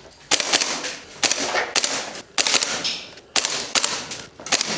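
Airsoft gas blowback rifle, a WellPro PPK-20 AK-style GBBR, firing a string of single shots. Each shot is a sharp crack with the bolt's blowback clack, several times at uneven intervals.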